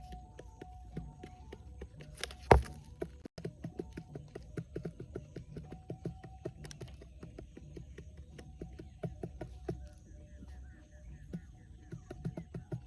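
Irregular light tapping and clicking, with one sharp, much louder knock about two and a half seconds in.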